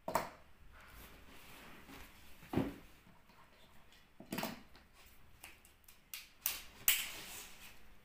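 Light knocks and clacks as small toys and cups are handled and set down on a hard tabletop: about five short, sharp sounds at irregular times, the loudest near the end.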